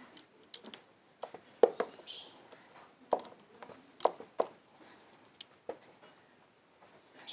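Scattered light clicks and taps, about a dozen at uneven intervals, with a short high chirp about two seconds in.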